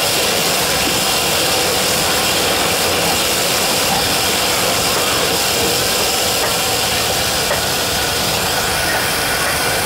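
Steady, loud machine noise: an even hiss with an engine-like running drone underneath, unchanging throughout.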